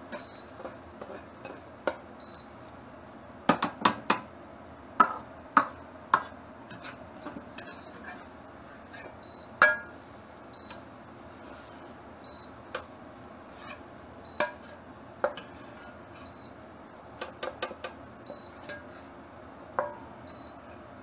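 Metal wok ladle clanking and scraping against a wok while stir-frying an egg mixture. The sharp clanks come irregularly, with a quick run of them about three and a half seconds in.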